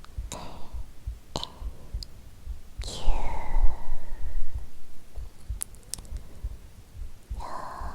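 A woman's real heartbeat beating steadily, recorded close, with soft whispering and a few mouth clicks over it. A longer breathy whisper about three seconds in is the loudest part.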